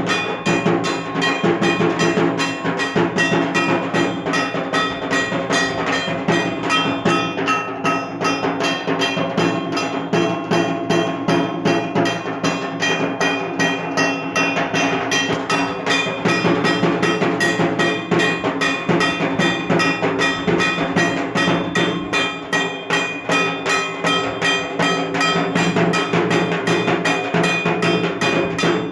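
Dhak drums beaten with sticks in a fast, unbroken rhythm.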